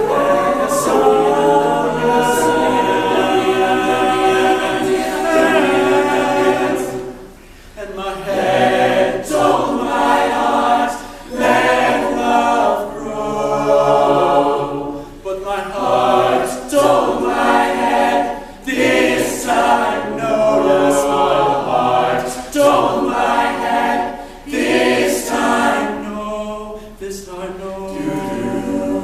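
An a cappella vocal group sings wordless harmony with no instruments. The group holds chords for the first several seconds, then sings in short, separated phrases with brief gaps between them.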